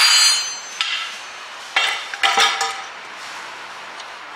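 Steel tools clanking and ringing as the ball joint splitter is handled: a loud ringing clank at the start, a small click about a second in, then two more ringing clanks around two seconds in.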